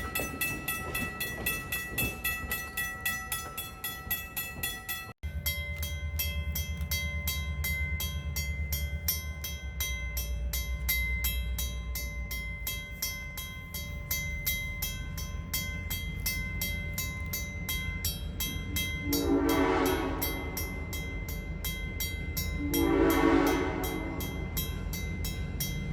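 Diesel locomotive hauling a passenger train, its engine rumbling steadily and swelling about 10 seconds in, then sounding its multi-note horn in two long blasts. Before a sudden break about 5 seconds in there is a rapid, even clicking.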